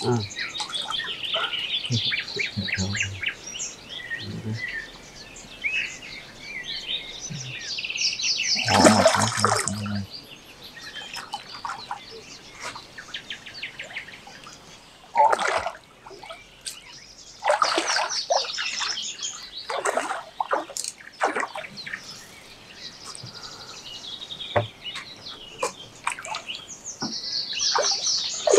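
Songbirds singing, with rapid repeated chirps and trills. A louder noisy burst comes about nine seconds in.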